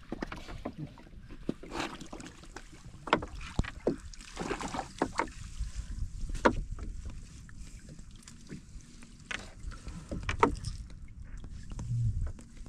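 A wet fishing net being hauled by hand over the side of a small wooden outrigger boat, with water lapping and dripping and a dozen or so irregular sharp knocks and clicks against the hull.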